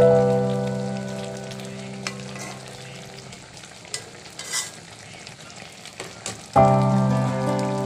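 Hilsa fish curry simmering in a pot, a soft bubbling, crackling sizzle with a few small clicks, clearest in the middle. Background music chords fade out over the first few seconds, and new ones come in loudly about two-thirds of the way through.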